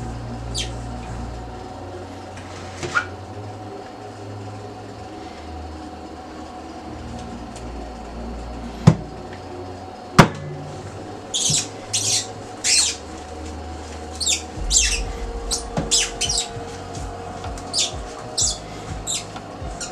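A stainless-steel mixing bowl squeaking and scraping against the bottom of a steel sink as dough is worked in it by hand. There are two sharp knocks about nine and ten seconds in, then a run of short, irregular high squeaks through the second half.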